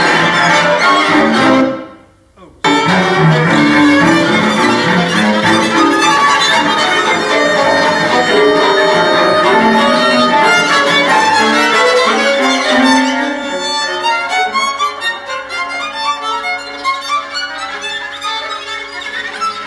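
Recorded music for bowed strings, violin prominent, played back over the hall's speakers. About two seconds in it drops away briefly and comes back abruptly, and near the end it thins to long held notes without the low register.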